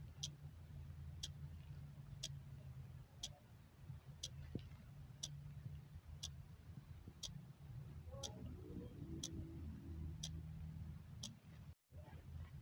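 Clock ticking steadily at one sharp, light tick per second over a low steady hum. There is a brief cut to silence near the end.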